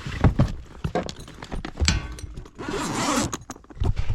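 Tools knocking and clinking as someone rummages through a tool bag, with a longer rustle of handling a little past the middle.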